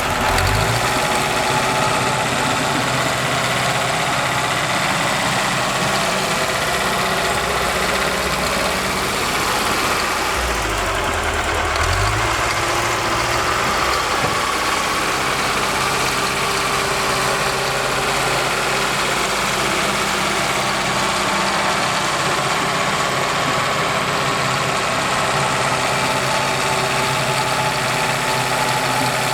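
Bulldozer's diesel engine running steadily under work, with brief shifts in engine pitch about a second in and again about twelve seconds in.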